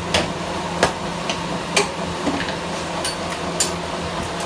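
Sharp metal clanks and knocks, about five over a few seconds, from the metal shoe moulds being handled and closed on a PVC shoe injection-moulding machine, over the machine's steady hum.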